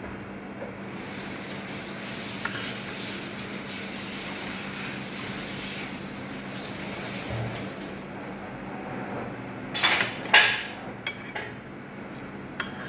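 Water running steadily for about seven seconds and then stopping, followed by a metal spoon and fork clinking against a plate a few times.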